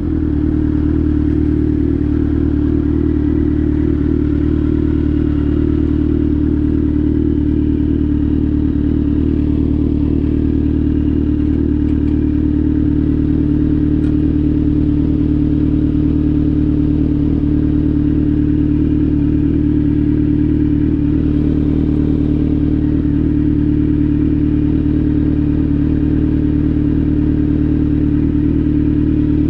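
Kawasaki Z900's inline-four engine running through an SC-Project GP1 exhaust, held at one steady engine speed with no revving.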